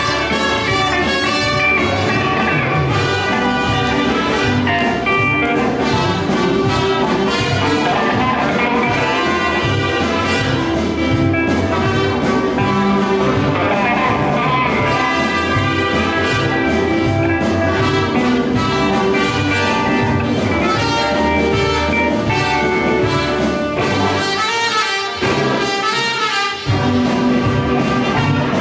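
Live band playing an instrumental, with trumpet and saxophone leading over electric guitars, bass guitar and drums keeping a steady beat. Near the end the bass and drums drop out briefly, then come back in.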